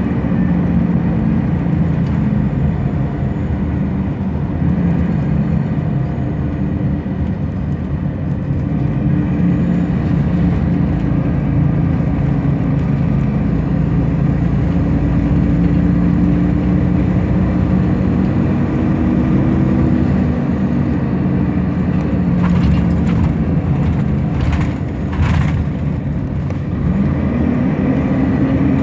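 Scania DSC9 310 hp straight-six diesel engine of a 1999 Scania L94UB bus running steadily under way, heard inside the passenger cabin over tyre and road noise. A few short rattles come in near the end, and the engine pitch rises briefly just before it ends.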